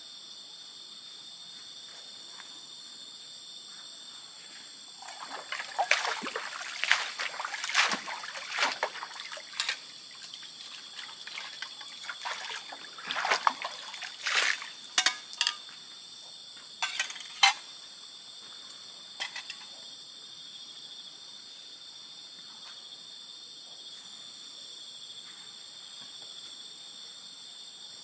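Steady high-pitched insect chorus, with a run of irregular splashing and trickling water from about five to eighteen seconds in.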